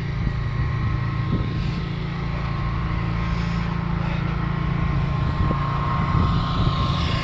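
Vehicle engine running at a steady low drone while the vehicle moves slowly, with a faint steady high tone over it.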